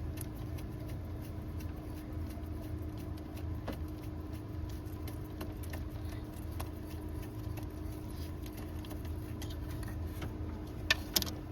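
Faint, irregular light clicks of a ratchet and socket working bolts loose, over a steady low hum, with two sharper metallic clicks near the end.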